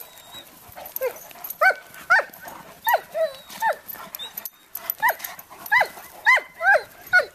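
A dog giving a string of about a dozen short, high-pitched barks or yelps, each falling in pitch, with a pause of about a second midway: play barking during rough play with another dog.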